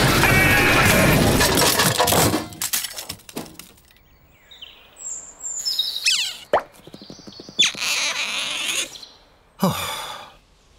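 Cartoon sound effects. A loud stretch of chase music and car noise cuts off about two seconds in. Sparse comic effects follow: short chirps, a single sharp smack about two-thirds in, and sliding glides, the last one falling near the end.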